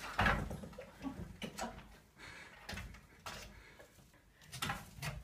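Irregular knocks and scuffs of a cat clambering on a four-poster bed's top rail, its claws and body bumping the frame, about eight knocks in five seconds, the strongest just after the start and a cluster near the end.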